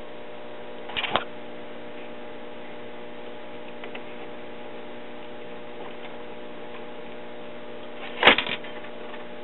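Steady mains hum from a 1939 Zenith 4K331 battery tube radio just powered up on an old-fashioned battery eliminator, with no station or static coming through: the set is not yet receiving. A brief click about a second in and a short louder noise near the end.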